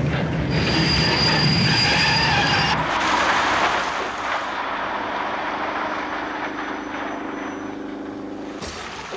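Steam train running, its wheels squealing on the rails with thin high tones for the first few seconds. After a sudden change the sound turns quieter and steadier, with a low held tone from about halfway that stops near the end.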